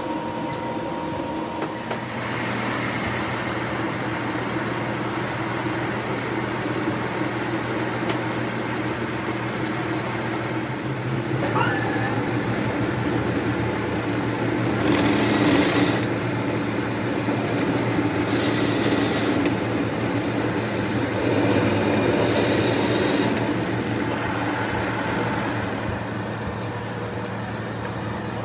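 A workshop machine running steadily with a low hum, and a few short stretches of louder, higher hiss around the middle and later on.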